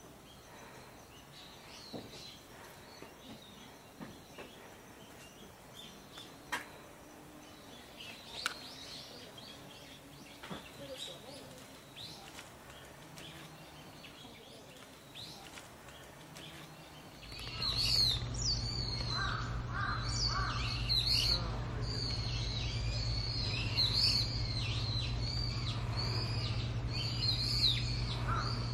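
Outdoor ambience with birds chirping: faint at first with a few scattered clicks, then from about two-thirds in much louder, with many quick, repeated high chirps over a steady low hum.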